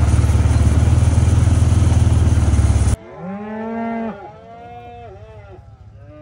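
ATV engine running steadily under the rider, with a rush of wind and motion noise. About three seconds in it cuts sharply to cattle mooing, one long loud call followed by several overlapping calls from the herd.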